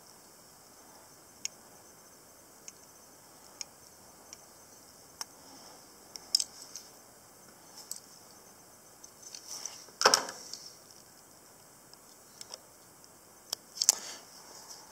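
Small metallic clicks and ticks of a fly-tying whip-finish tool working the thread behind the hook eye, scattered and irregular, with a few louder clicks about six, ten and fourteen seconds in.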